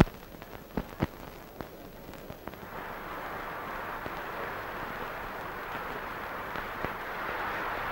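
Audience applauding, the clapping building up to a steady level after a few sharp knocks in the first second.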